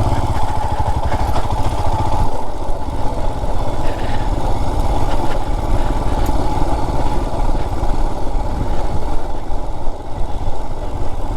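Royal Enfield Himalayan's single-cylinder engine running steadily, with an even low thump.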